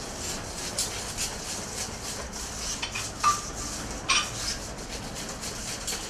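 Wire whisk scraping and clinking against a stainless steel mixing bowl in quick, repeated strokes, with two sharper clinks midway. It is hand-whisking flour into a beaten egg yolk, sugar and vanilla mixture for pastry cream.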